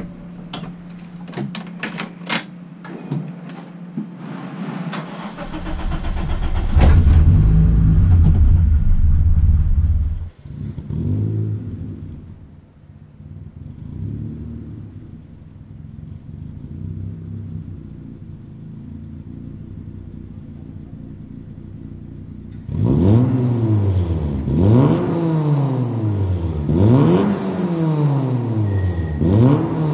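Honda Brio's swapped-in 1.5-litre i-VTEC four-cylinder from a 2021 Honda City: several switch clicks, then the engine starts about five seconds in and runs loudly for a few seconds before settling lower. Over the last seven seconds it is revved sharply again and again, the pitch shooting up and falling back about every two seconds.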